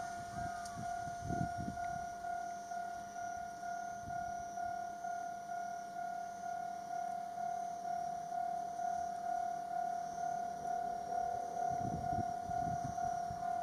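Railway level-crossing warning bell ringing over and over in a steady pulsing tone, as a train approaches. In the last couple of seconds the low rumble of the approaching KiHa 201 diesel railcar comes in under it.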